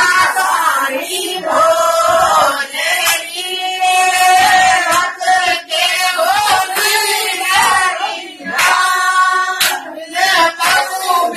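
Several voices singing together in long held notes, with a few sharp claps between phrases.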